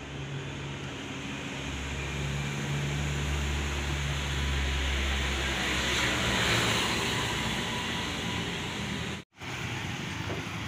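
Roadside traffic noise: a steady hiss with a low vehicle rumble that swells and fades over a few seconds. The sound drops out for an instant near the end.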